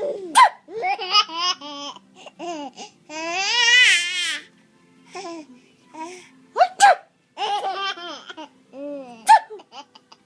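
Baby boy laughing in repeated bouts of giggles, with one long, high, quavering laugh about three seconds in. Short sharp bursts come between the bouts.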